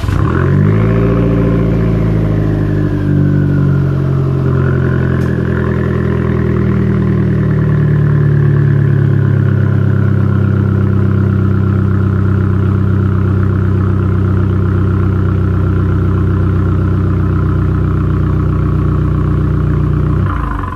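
Straight-piped exhaust of a 2014 Fiat 500L's 1.4-litre turbo four-cylinder, with both muffler and resonator removed. The engine fires at the start, settles from a fast idle over the first few seconds into a steady idle, and is shut off just before the end.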